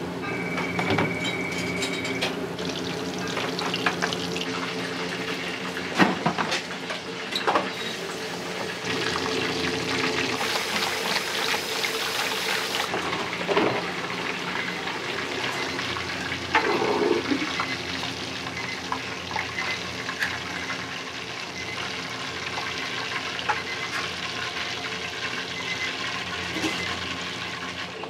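Water running from a kitchen tap, with a steady hum of kitchen equipment underneath and a few sharp knocks, about 6, 7 and 13 seconds in.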